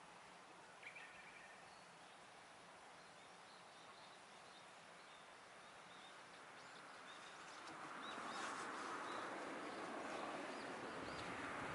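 Faint birdsong: small birds giving short, high chirps over a quiet outdoor hiss. The hiss grows louder about two-thirds of the way in.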